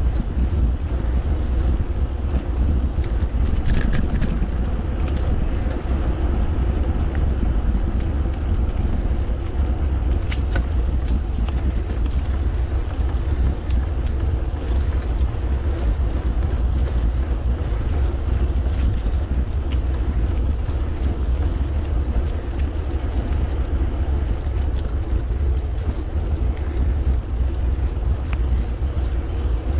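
Steady wind noise on the microphone and tyre noise from a mountain bike rolling along a paved path, with a few light clicks.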